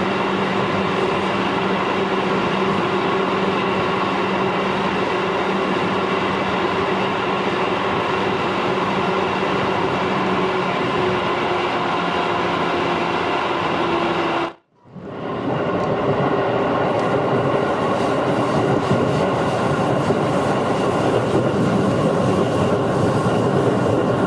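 Running noise of a JR 211-series electric multiple unit heard from inside the carriage: a steady rumble of wheels on the rails with a faint steady hum. About fifteen seconds in, the sound drops out for a split second and then comes back.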